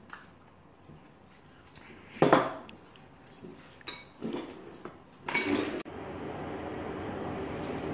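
A plastic spatula scraping and knocking against a nonstick frying pan and ceramic bowls as fried rice is dished out, with spoons clinking on the bowls; the loudest clatter comes about two seconds in, and another comes just before six seconds. After that the clatter stops suddenly and a steady noise with a low hum takes over.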